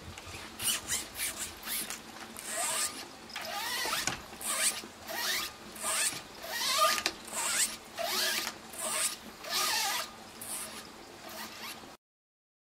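Cat claws raking and scratching at a window screen's mesh: about a dozen short, raspy, zipper-like strokes with a squeak, roughly one a second.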